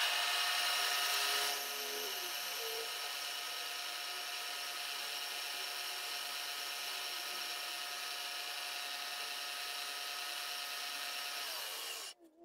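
Milling machine spindle running with a steady whine while a small drill cuts a cross hole into a brass crosshead. The sound starts abruptly, is a little louder for the first second and a half, and stops suddenly near the end.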